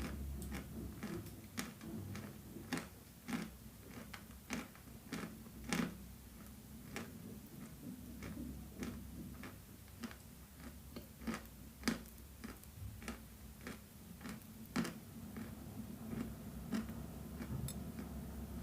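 Close-miked crunching of edible chalk being bitten and chewed: a string of sharp, irregular crunches, about one or two a second, over a low steady hum.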